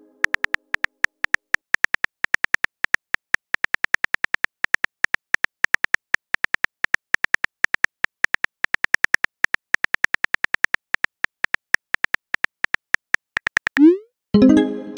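Phone keyboard key-click sound effects, a fast irregular run of short taps, several a second, as a text message is typed. Near the end a quick rising whoosh and then a ringing chime tone as the message is sent.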